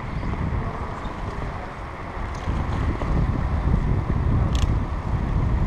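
Wind buffeting the microphone of a camera riding on a moving bicycle, mixed with the rumble of the ride over the street surface and nearby traffic. A single sharp click comes about four and a half seconds in.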